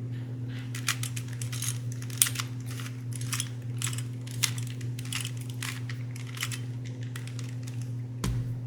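A stiff, stickered Rubik's brand cube being turned by hand in a quick run of moves, its plastic layers clicking and scraping. A single thump comes near the end, over a steady low hum.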